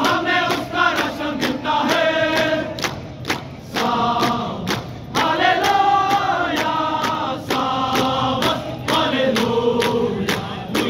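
A large group of soldiers chanting in unison, a sung war chant, over a regular beat of sharp strikes about two to three a second.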